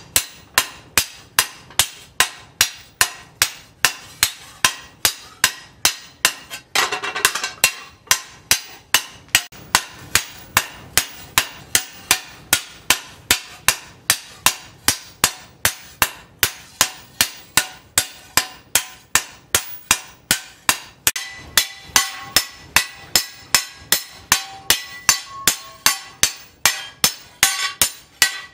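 Sledgehammer blows on a steel tractor disc-plough blade resting on a steel post anvil, struck steadily about twice a second. A brief clatter comes about seven seconds in, and in the later strikes the steel disc rings on between blows.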